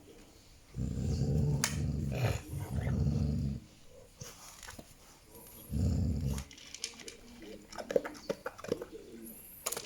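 A dog growling low: two long growls back to back from about a second in, and a shorter one near six seconds. Scattered light clicks and taps follow.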